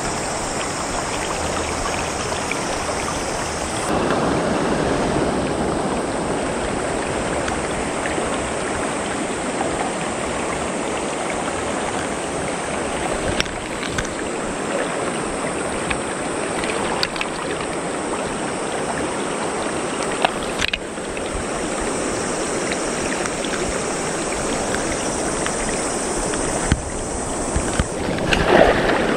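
Fast-flowing mountain river current rushing steadily, a little louder from about four seconds in, with a few faint clicks.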